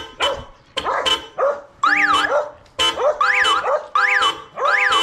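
Several extra car horns wired onto a car, honked in a rhythm. A few short blasts come first, then from about two seconds in repeated blasts of chord-like steady tones, each with a tone that swoops up and back down in pitch.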